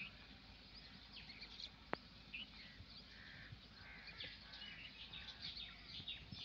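Faint chirping of several small birds over quiet open-field ambience, with one sharp click about two seconds in.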